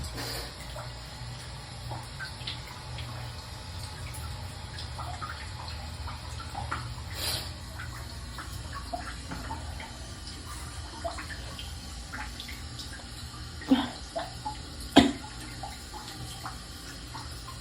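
Water sloshing and dripping, with scattered small ticks over a steady low hum. Two sudden louder sounds come about a second apart near the end.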